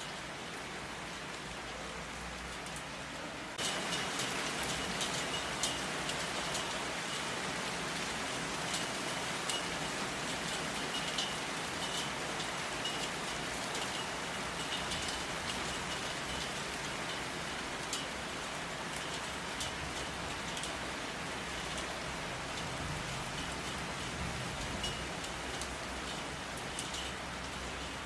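Steady rain falling, with many individual drops ticking sharply through the hiss. About three and a half seconds in it suddenly gets louder and denser, then stays steady.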